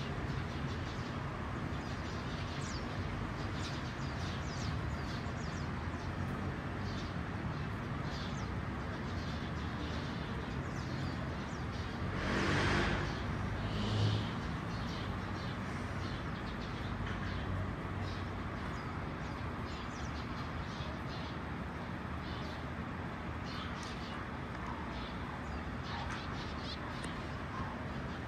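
Many short bird chirps scattered over a steady background hiss. About twelve seconds in, a louder rushing sound swells for a second or so, and a short louder sound follows about two seconds later.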